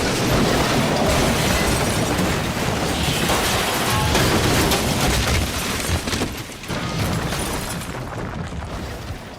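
A long crash or explosion sound effect: a loud, dense rumbling and crashing noise that holds for several seconds and then fades gradually.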